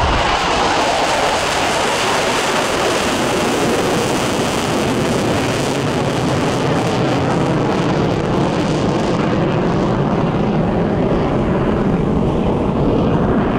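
F-35C Lightning II's single Pratt & Whitney F135 turbofan running in afterburner, a loud, steady jet rumble. The high end fades over the last few seconds as the jet turns away.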